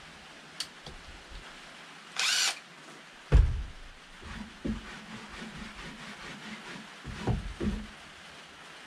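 A cordless power tool's motor whirs for about half a second, then a loud thump and a string of lighter knocks as wood blocks are handled and set down on the plank deck.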